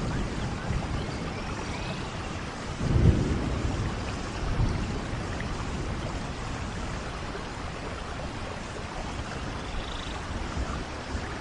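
Steady rain falling, with a low rumble of thunder swelling about three seconds in.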